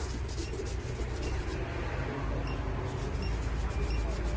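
Faint, quick rubbing strokes of a polish pad worked by hand over a leather shoe, over a steady low rumble.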